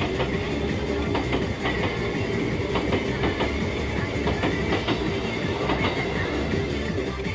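A train running past over the level crossing, its wheels clacking irregularly over the rail joints.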